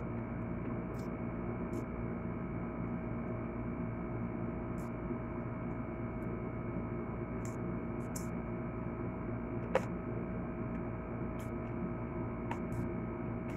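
Steady electrical hum holding several tones, with about a dozen short, faint clicks of eating scattered through it.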